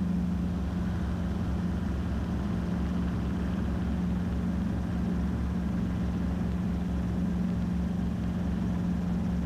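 Robinson R22 helicopter in climb-out just after takeoff, engine and rotors running steadily: an even drone with a strong steady tone and a low, rapid pulsing beat underneath.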